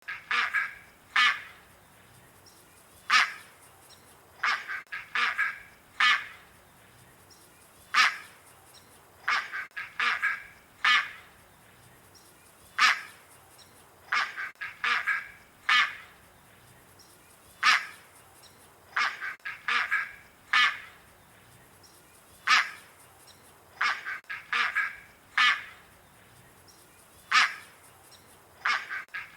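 White ibis calling: short, nasal, honking calls, some in quick runs of three or four and some single. The same sequence repeats about every five seconds, like a looped recording.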